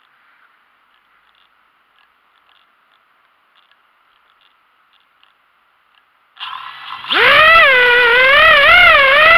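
Nearly silent for about six seconds. Then the FPV quadcopter's KingKong 2205 brushless motors and propellers spin up and run loudly as it lifts off, their pitch wavering up and down as the throttle is worked.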